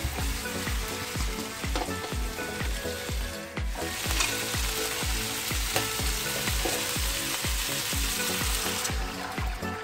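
Sliced pork sizzling and frying in a hot wok as a wooden spatula stirs it. The sizzle stops about nine seconds in as pork stock is poured over the meat. A steady beat of background music runs underneath.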